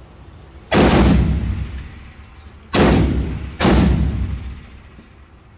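Three loud gunshots, each trailing off in a long echo: one about a second in, then two close together a little past halfway.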